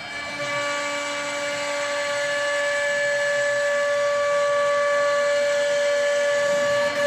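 CNC router spindle running at a steady whine while milling pockets in the workpiece, with a hiss of cutting noise underneath; the sound grows louder over the first couple of seconds as a stronger tone comes in.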